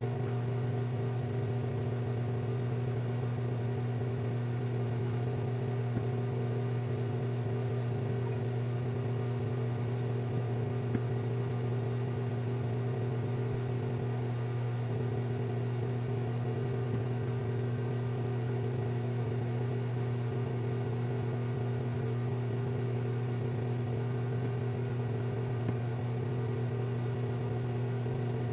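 Electric fan running with a steady, even hum.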